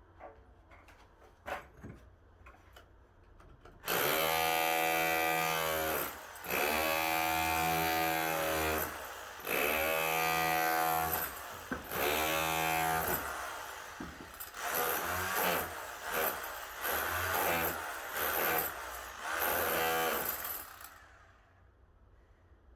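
A power tool running in several bursts of a few seconds each, then in shorter, uneven spurts before stopping.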